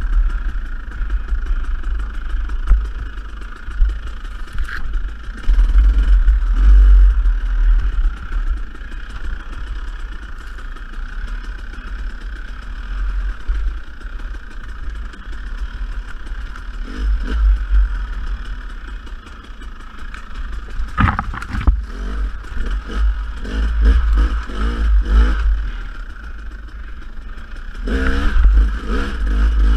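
Dirt bike engine running on a trail ride, its throttle opening and closing so the sound swells and falls, with heavy wind rumble on the microphone. A sharp knock about two-thirds of the way through.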